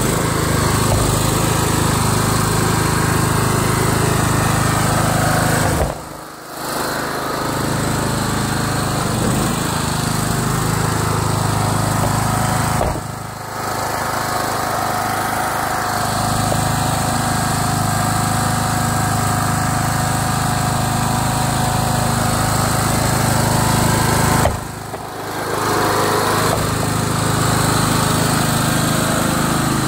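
Kohler engine of a Craftsman LT lawn tractor running steadily as the tractor is driven along pavement. The sound dips briefly three times.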